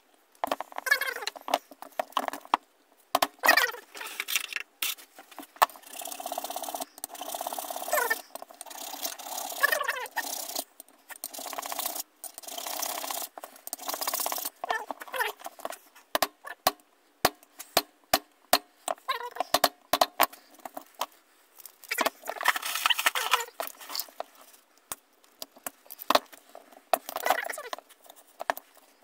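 Hands working on an old geared hand drill: clinks and knocks of metal parts and tools against the bench, with a run of rasping strokes in the middle as a hand file scrapes along the drill.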